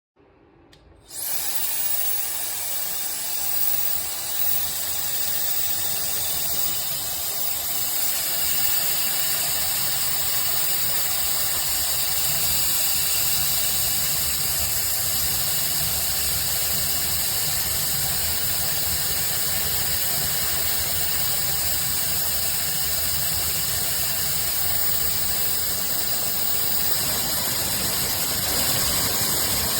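Hair dryer switched on about a second in and running steadily: a loud rush of blown air with a steady high-pitched motor whine.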